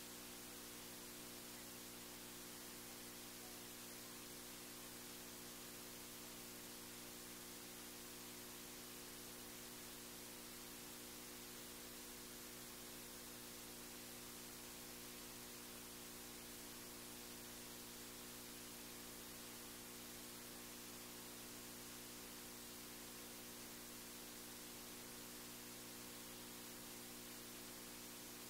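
Faint, steady electrical hum with an even hiss, unchanging throughout; no other sound stands out.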